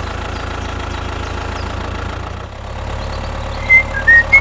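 Tractor engine running steadily with a low, even idle-like chug. Near the end, a few short high chirps cut in over it, louder than the engine.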